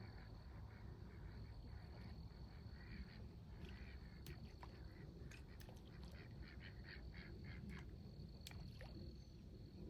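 Faint animal calls in quick repeated series, about three a second, over a steady high-pitched tone, with a few sharp clicks in the second half.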